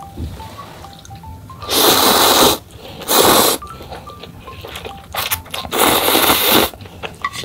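Instant ramen noodles slurped loudly from a bowl: three long slurps, about two, three and six seconds in.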